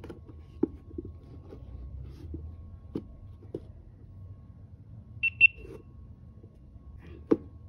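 Two quick, high-pitched beeps from a GoPro Hero10 Black about five seconds in while it pairs with a phone over Bluetooth, among a handful of sharp taps and clicks from the camera and phone being handled.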